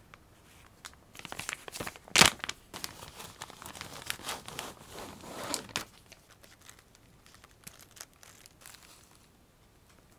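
Clear plastic zip bag crinkling and rustling as it is opened and a doll wig in a cardboard insert is drawn out, with one sharp rip about two seconds in. The handling dies down to a few faint rustles after about six seconds.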